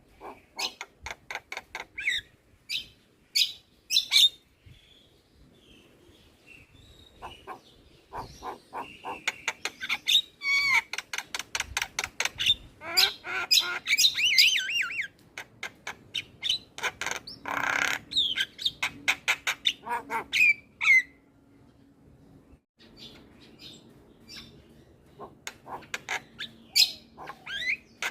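Javan myna calling almost without pause: fast runs of harsh, clicking chatter and squawks mixed with whistled notes that glide up and down, with two short lulls, about a fifth of the way in and again about three-quarters in.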